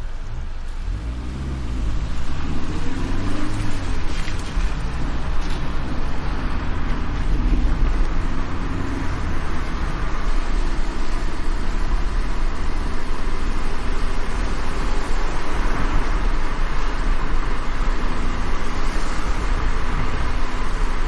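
A car driving on a wet road in the rain: the engine rises in pitch as it gathers speed over the first few seconds, then a steady hiss of rain and tyre spray runs over a low engine rumble.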